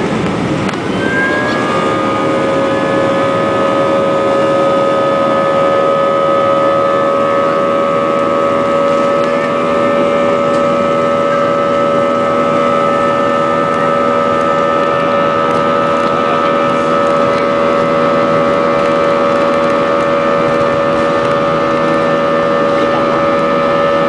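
Airbus A320's IAE V2500 turbofan engines at takeoff power, heard from inside the cabin: a loud steady roar. About a second in, the sound swells and a fan whine of two steady tones sets in. It then holds level.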